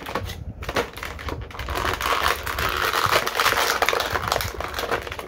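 Plastic toy packaging crinkling and crackling as it is handled and opened, a dense run of small crackles that builds from about a second in.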